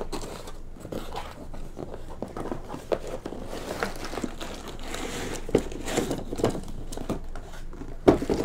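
Cardboard box being opened by hand: flaps scraping and folding, plastic and paper wrapping crinkling, with irregular light knocks and the loudest knock near the end.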